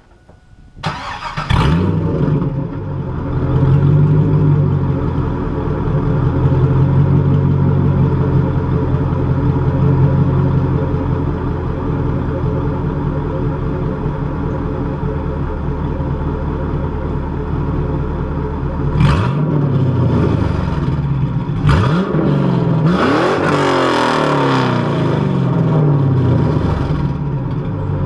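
2002 Camaro Z28's LS1 V8 starting up about a second in and then idling steadily through Pacesetter long-tube headers, a 2.5-inch X-pipe and Moroso spiral-flow mufflers dumped ahead of the rear wheels. In the last third it is blipped and revved a few times, the pitch rising and falling, then drops back to idle.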